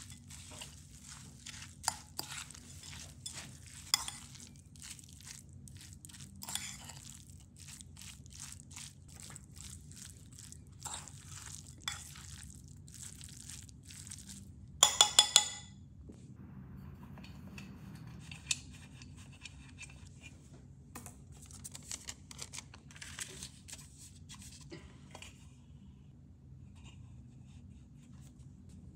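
A metal spoon stirring a thick, wet mix of rolled oats and grated apple in a ceramic bowl: an irregular crackly scraping and squelching with small clicks. About halfway through comes a quick run of four sharp clinks of the spoon against the bowl.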